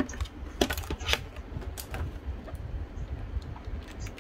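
Hard plastic blister packaging clicking and crackling as it is handled and worked at with a box cutter to break it open, with a cluster of sharper clicks about a second in. A steady low hum runs underneath.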